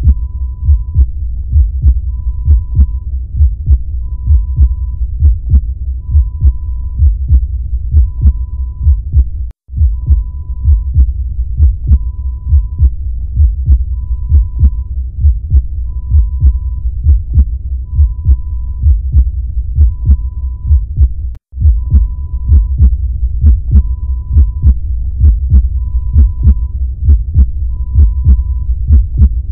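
Heartbeat sound effect: deep, steady thumping pulses, with a short high beep about every two seconds. It cuts out for an instant twice.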